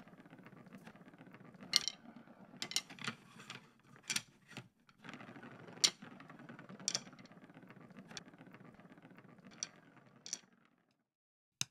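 Wooden drumsticks rolling across a tabletop: a faint, steady rolling rumble with occasional light clicks as the sticks, not quite straight, bump along. The rolling stops near the end.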